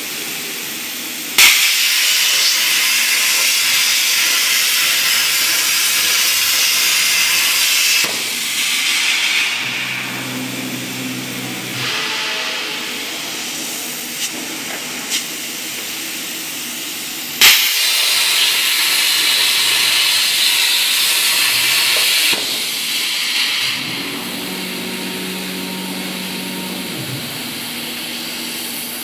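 CNC plasma cutter: the torch starts with a sharp pop, then hisses loudly and steadily for several seconds. This happens twice. Between the cuts there is a quieter hiss with a low hum.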